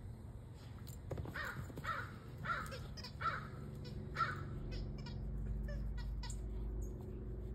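A crow cawing five times in a row, starting about a second in, followed by a few faint short ticks.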